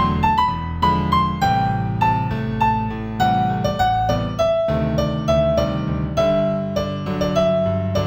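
Piano music: a gentle melody of single struck notes, a new note roughly every half second, over low sustained chords.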